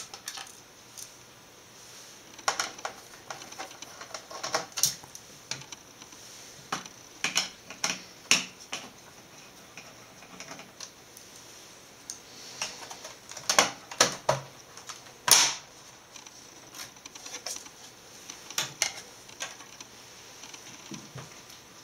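Irregular clicks, taps and small knocks of a screwdriver working screws out of an all-in-one computer's metal chassis and of its plastic bottom panel being handled and lifted off. The loudest knocks come about two-thirds of the way through.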